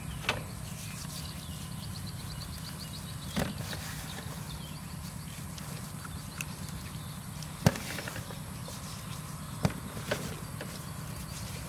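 A few sharp knocks, about five in all, as salted raw fish steaks are picked up and set down on a stainless steel tray, over a steady low hum. A faint rapid chirping comes briefly about three seconds in.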